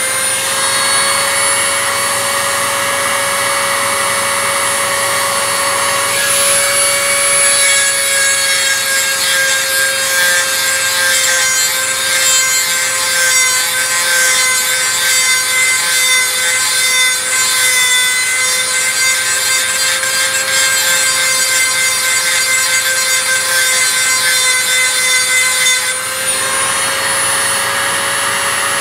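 Dremel rotary tool running at a steady high whine, its small abrasive bit grinding a steel part held in locking pliers, with the scratchy rasp of stone on metal. Near the end the grinding lets up while the motor keeps running.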